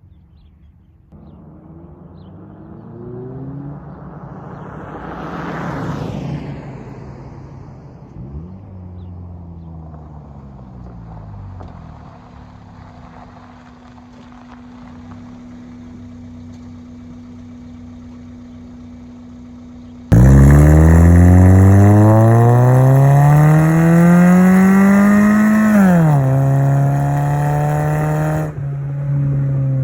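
2003 Toyota Corolla's 1.8-litre 1ZZ-FE four-cylinder, breathing through a short ram intake and cat-deleted exhaust. For about twenty seconds the engine runs quieter, its note rising and falling. Then it is suddenly loud, accelerating hard with the pitch climbing for about six seconds until the automatic transmission upshifts and the note drops, then running steady before it cuts off.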